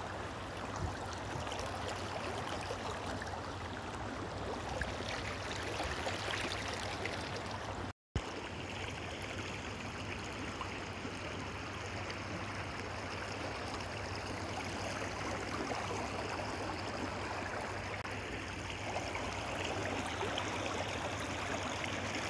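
River water running over shallow rapids, a steady rush. The sound breaks off for an instant about eight seconds in and resumes.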